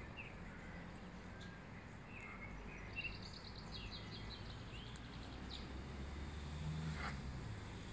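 Outdoor ambience of birds chirping, with a quick run of trilled notes near the middle, over a steady low background rumble. There is a short tap about three seconds in.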